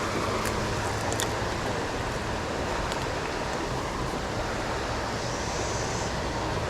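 Steady rush of flowing creek water, with a few faint clicks in the first three seconds.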